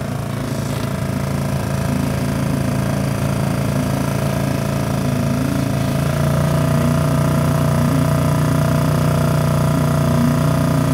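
Small outboard motor running steadily under way, pushing an inflatable boat whose bow compartment and floor have been let down; its hum grows a little louder about six seconds in.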